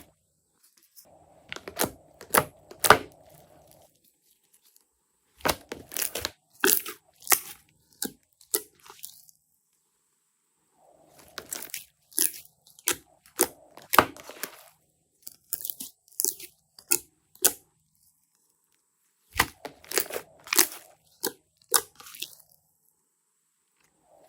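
Slime being squeezed and poked by hand, giving clusters of crackling, popping clicks. They come in five bursts of a few seconds each, with silent breaks between them.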